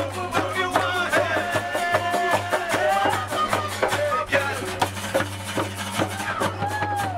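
Acoustic guitar strummed in a steady rhythm, with voices singing along.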